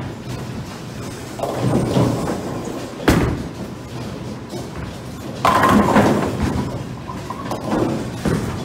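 A Storm Shift Lock bowling ball lands on the lane with a sharp thud about three seconds in, then, a little over two seconds later, there is a loud clatter of pins being hit, which dies away over about a second.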